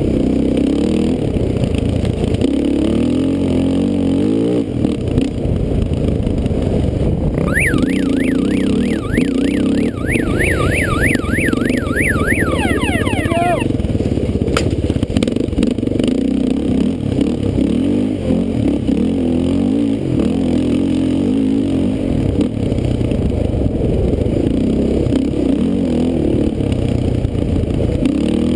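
Off-road dirt bike engine running hard and revving up and down with the throttle over a rough, rocky trail. From about a quarter of the way in, a high warbling whine sweeps up and down for several seconds on top of it.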